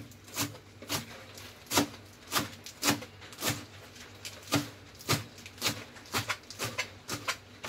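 Cleaver chopping choy sum stalks and leaves on a plastic cutting board: a steady series of sharp knife knocks, about two a second.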